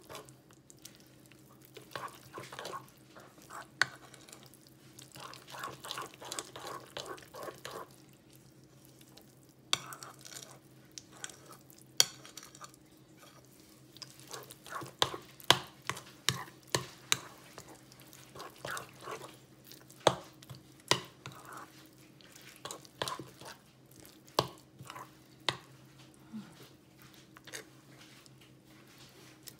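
A thick, wet noodlefish-and-egg batter being stirred by hand in a bowl: irregular wet squelching and scraping, with frequent sharp clicks and knocks of the utensil against the bowl. A faint steady hum runs underneath.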